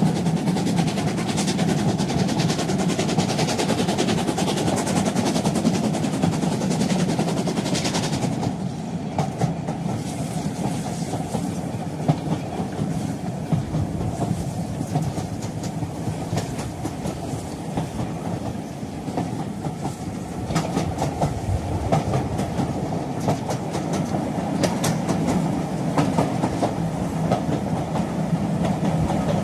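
Train running along the track: a steady rumble with the clickety-clack of wheels over rail joints. It eases off about eight seconds in and picks up again later.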